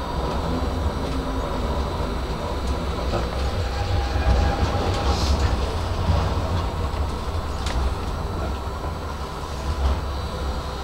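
A tram running, heard from inside behind the driver's cab: a steady low rumble from the running gear, with a few sharp clicks, the clearest about halfway through and again a couple of seconds later.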